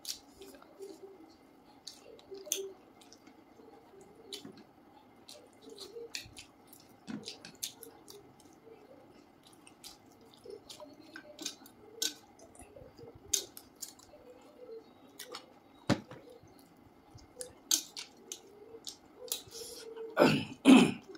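Close-up eating by hand: scattered wet smacks and clicks of chewing and of fingers picking food off plates, over a faint steady background hum, with a few louder smacks near the end.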